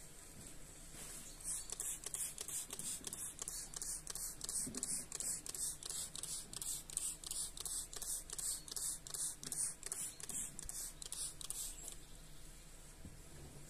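Plastic trigger spray bottle squirted over and over, about three short hissing sprays a second, misting liquid onto a frosted car windshield. The spraying starts about a second and a half in and stops a couple of seconds before the end.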